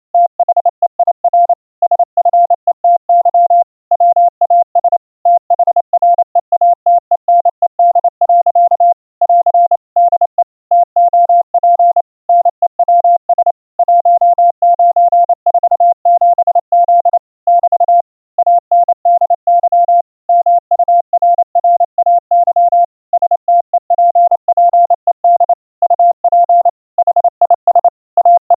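Morse code at about 30 words per minute: a single steady tone keyed on and off in rapid dots and dashes, received over CWCom as a code practice oscillator tone.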